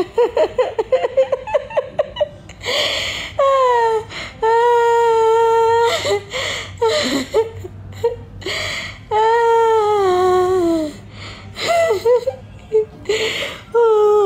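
A woman laughing uncontrollably. It opens with a quick run of giggles, followed by wheezing gasps for breath between two long, high-pitched squeals; the second squeal slides down in pitch.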